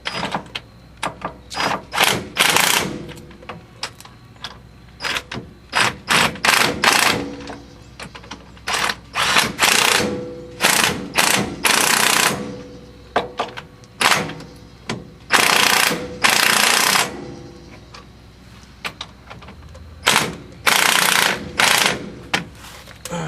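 Impact wrench driving in the 15 mm wheel hub bolts, running in a string of bursts of hammering: many short blips and a few longer runs of over a second.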